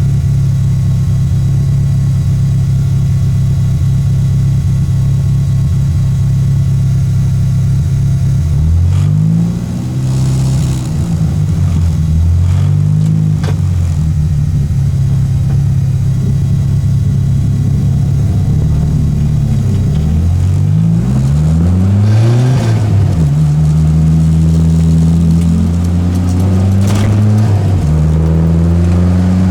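Peugeot 205 engine lapping a race circuit, held at a steady pitch for several seconds before its note sweeps up and down repeatedly through gear changes and corners, then settles to a steady pitch again near the end.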